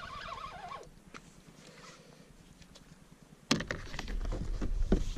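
An osprey chirping briefly at the start, then a quiet stretch. About three and a half seconds in, wind rumble on the microphone starts suddenly with a run of sharp clicks and knocks.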